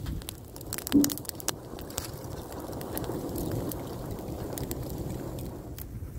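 Dry brushwood fire burning with a steady low rumble and sharp crackles and pops from the twigs, the loudest pop about a second in.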